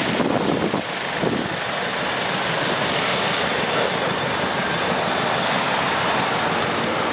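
Busy city road traffic: buses and cars running and passing in a steady wash of noise.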